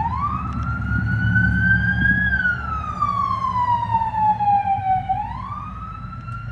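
Police car siren wailing: its pitch sweeps up at the start, climbs slowly, glides down over about three seconds, then sweeps up again near the end, over a low rumble of vehicle engines.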